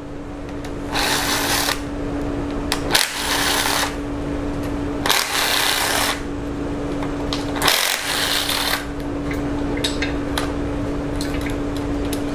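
Cordless impact driver with a 6 mm hex bit backing out bolts, the motor running steadily with about four short bursts of hammering as bolts break loose.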